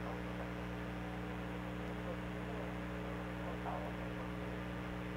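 Steady electrical mains hum, one even drone made of several low tones that does not change.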